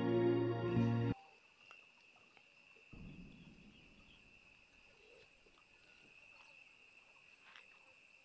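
Background music cuts off suddenly about a second in. After it there is a faint steady high-pitched insect drone, like crickets, with a soft low rumble about three seconds in.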